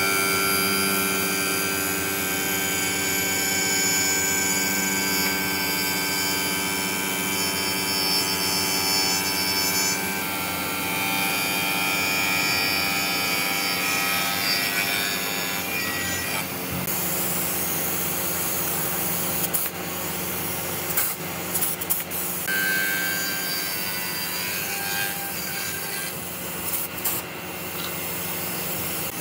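Woodworking machinery running with a steady multi-tone whine while wood is cut, from a spinning spindle moulder cutter with boards fed past it. The tone pattern shifts about ten seconds in and again past the middle, and a few sharp knocks come in the last third.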